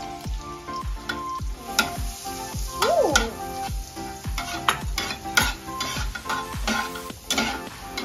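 Minced garlic sizzling in melted butter in a frying pan, with a spatula stirring it and scraping the pan several times. Background music with a steady beat plays throughout.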